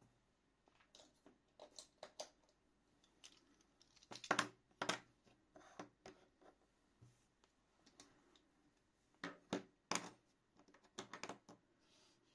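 Faint, irregular clicks and rustles of small objects being handled on a work surface, with a few louder knocks about four to five seconds in and again around ten seconds.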